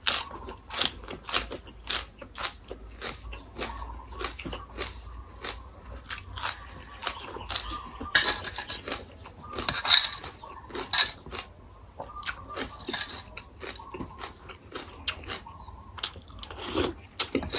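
Close-miked chewing of crisp raw greens and papaya salad: an irregular, rapid run of sharp crunches and bites, several a second.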